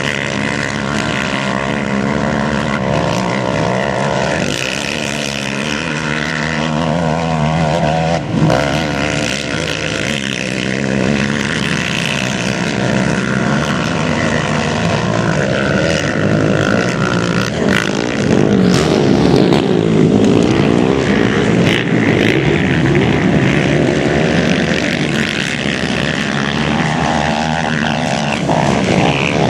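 Several racing quad (ATV) engines running together, revving up and down as they climb and race. Their pitch keeps rising and falling and the sound never lets up.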